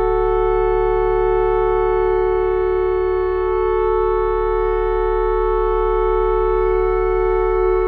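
A polyphonic theremin holding a sustained electronic chord of several steady tones, unchanging in pitch or loudness.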